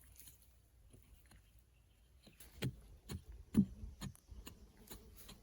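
A run of irregular knocks and clatters, roughly two a second, beginning about two seconds in. The loudest comes a little past halfway.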